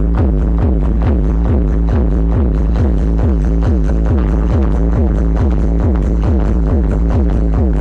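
Electronic dance music with very heavy sub-bass, played loud through large outdoor subwoofer stacks, with a deep bass that never lets up and a fast repeating beat.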